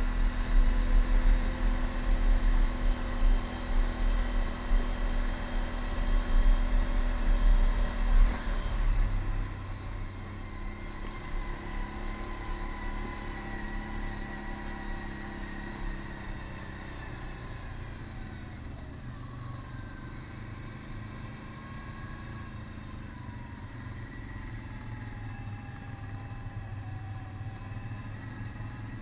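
Can-Am Outlander ATV engine running under way, loud with a slightly rising pitch for the first eight seconds or so, then easing off about nine seconds in and running quieter and steadier.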